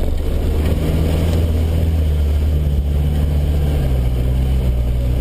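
Land Rover Discovery 1's 300Tdi turbo-diesel four-cylinder engine running at low speed while driving over a rutted mud track, heard from inside the cabin. The engine note rises a little about a second in and drops back near the end.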